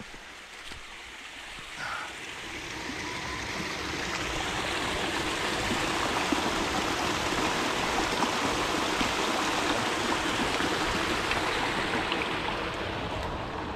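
Small muddy woodland creek running. The rush of water swells over the first few seconds and eases a little near the end.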